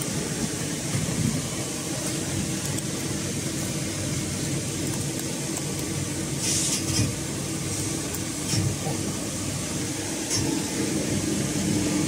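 Steady hum of running workshop machinery, with short rustling scrapes about six and a half and eight and a half seconds in as steel baling wire is pulled around a cloth-wrapped cotton bale.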